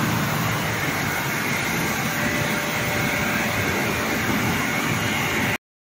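Glass-processing machinery running in a factory: a steady mechanical noise with a faint steady whine. It cuts off suddenly near the end.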